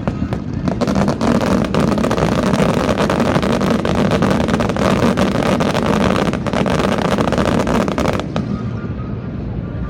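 Fireworks going off in a dense barrage, many overlapping booms and crackles, that ends abruptly about eight seconds in.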